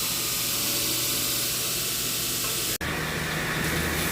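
Steady loud hiss of workshop machinery running. About three seconds in it cuts off abruptly, then resumes with a steady low motor hum underneath.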